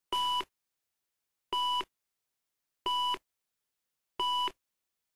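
Four short electronic beeps of one steady pitch, evenly spaced a little over a second apart, with dead silence between them.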